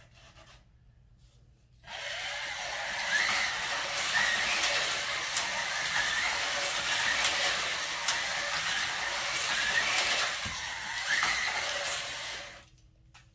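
1:43-scale Carrera GO slot cars running on the plastic track: a steady whirring buzz of their small electric motors and rolling wheels, with a short rise in pitch every second or so as a car comes past, and scattered sharp clicks. It starts about two seconds in and cuts off abruptly near the end.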